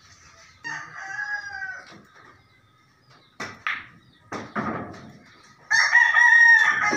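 Rooster crowing twice: a fainter crow just under a second in and a louder one near the end, each lasting over a second. A few sharp clicks of pool balls come in between.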